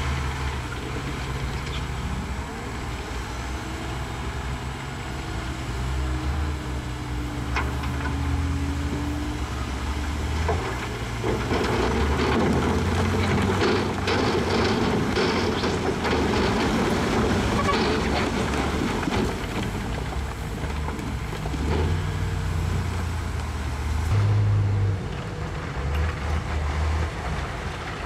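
A heavy diesel dump truck's engine runs steadily while its tipper bed is raised. For several seconds in the middle, a load of big rocks slides out of the bed and tumbles onto the pile with a loud rattling clatter.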